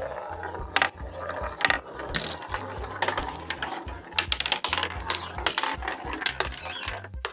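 Marbles rolling and clacking down a wooden marble run: a continuous rolling rattle with a rapid, uneven string of sharp clicks. The rolling stops shortly before the end.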